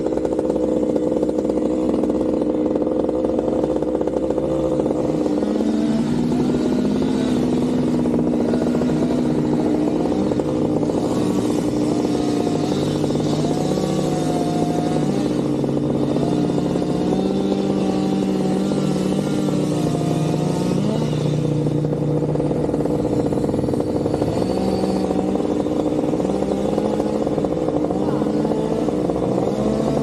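Steady drone of a running engine, most likely the skylift truck's engine powering the boom. From about six seconds in until about twenty-one seconds, other tones rise, fall and shift over it.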